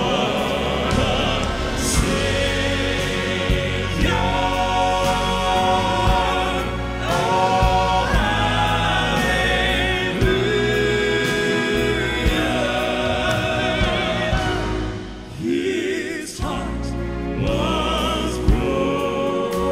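Male gospel quartet singing a southern gospel song in close four-part harmony, with live piano and band accompaniment keeping a steady beat.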